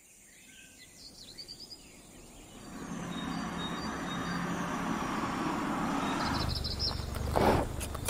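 Outdoor ambience: a few faint, high bird chirps, then a steady rush of noise that swells up about a third of the way in and holds.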